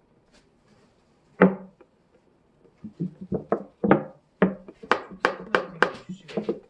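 Hollow knocks and taps on a plastic container: one about one and a half seconds in, then a quick irregular run of about three to four taps a second from about three seconds in.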